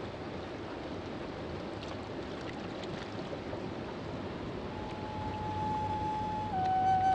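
Steady rush of running water. About two-thirds of the way in, a single sustained musical note comes in over it and drops slightly in pitch shortly before the end.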